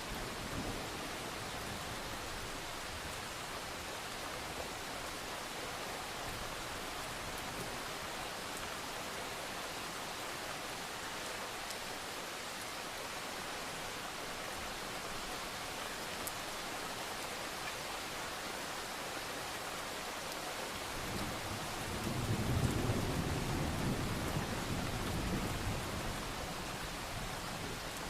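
Steady rain falling, with a roll of distant thunder rumbling up about three quarters of the way through and fading away over several seconds.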